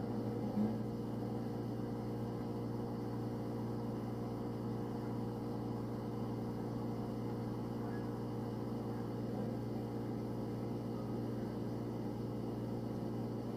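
Refrigerator running, a steady low hum heard from inside the closed fridge, with one small knock about half a second in.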